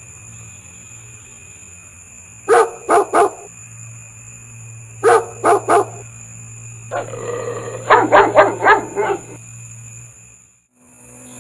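A dog barking in groups: three sharp barks about two and a half seconds in, three more about five seconds in, then a quicker run of about five near the end. Steady insect trilling carries on underneath.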